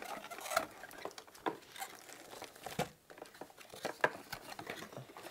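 Cardboard packaging rustling and crinkling, with scattered light knocks and scrapes, as a keyboard is lifted out of its box.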